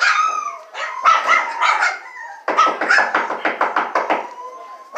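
A litter of four-week-old Rottweiler puppies yipping and barking in high, thin voices, many short calls overlapping, with a quick run of yaps about halfway through and a thin whine near the end.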